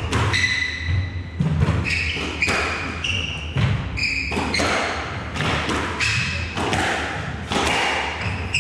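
Squash rally: the ball is struck by the rackets and hits the court walls again and again, while the players' shoes squeak in short, high chirps on the wooden floor.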